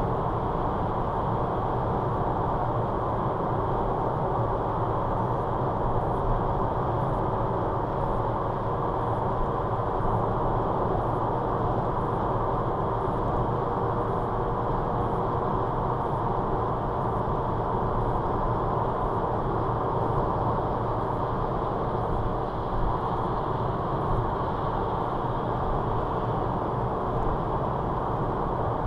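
Steady road and engine noise of a car cruising at motorway speed, heard from inside the cabin: an even low rumble of tyres and engine that stays constant throughout.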